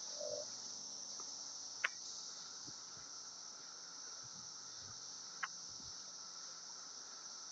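Cicadas droning steadily in chorus, a continuous high buzz, with a couple of brief faint clicks.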